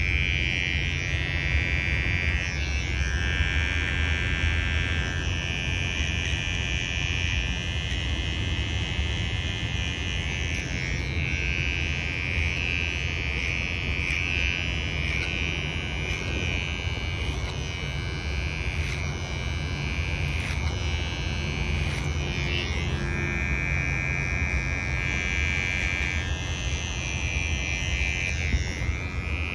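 Cordless electric hair clipper buzzing steadily while cutting short hair, its pitch dipping briefly several times. A low wind and traffic rumble runs underneath.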